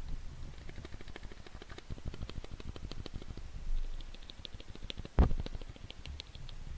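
Cherry MX Silent keyboard switches pressed and released in a quick run of clicks, each key ticking as it tops out on release, the fault that makes these silent switches not silent. One louder thump about five seconds in.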